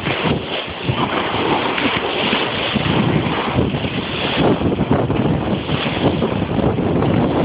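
Wind buffeting the microphone, over small waves breaking and washing up a sandy beach.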